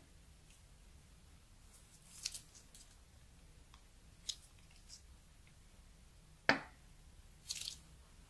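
A plastic piping bag of runny slime being squeezed out over a plastic tray: a few faint, separate sticky clicks and crinkles. The loudest is one sharper tap about six and a half seconds in.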